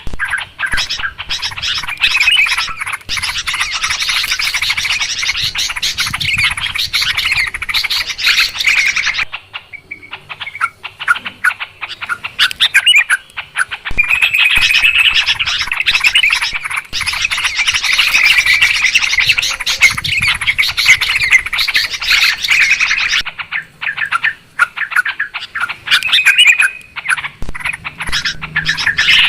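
Yellow-vented bulbuls (trucukan) calling noisily, a dense run of fast chattering calls, in a lure recording meant to draw bulbuls in. The chatter thins out briefly about a third of the way through, then picks up again.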